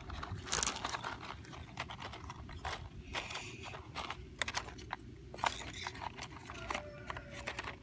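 Wooden kitchen matchsticks rattling and clicking in their cardboard box as fingers dig through them and pull one out, with the cardboard lid flap handled near the end; many small irregular clicks over a steady low rumble.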